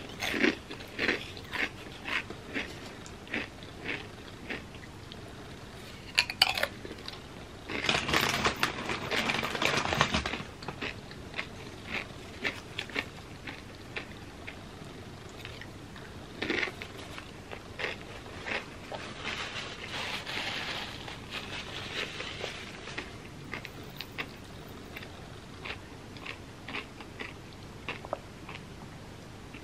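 Tortilla chips with creamy spinach dip being crunched and chewed: a quick run of crisp crunches, a long dense spell of crunching about eight seconds in and another around twenty seconds, then slower, softer chewing near the end.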